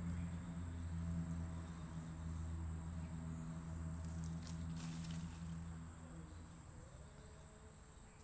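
Steady, high-pitched drone of insects, with a low steady hum that fades out about six seconds in.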